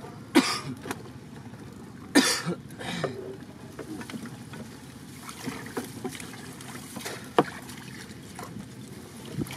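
Handling noise in a small wooden boat: a woven plastic sack rustling and scraping in three loud short bursts in the first three seconds, then a single sharp knock about seven seconds in.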